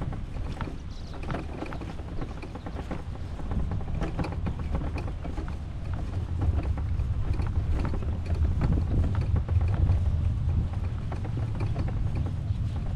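Wind buffeting the microphone as a steady low rumble, with irregular light clicking and rattling over it.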